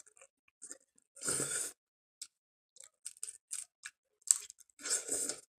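Close-up mouth sounds of eating shellfish meat from a sauced seafood boil: wet chewing and smacking in irregular short bursts, with two longer bursts about a second in and near the end.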